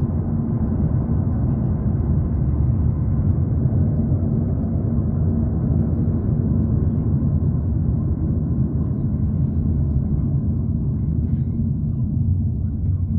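Cabin noise of a car on the move: a steady low rumble of engine and tyres on the road, heard from the back seat.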